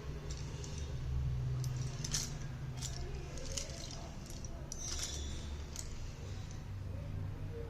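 Slate pencils clicking and clinking lightly against each other as they are handled: a handful of short, sharp clicks, over a low steady hum.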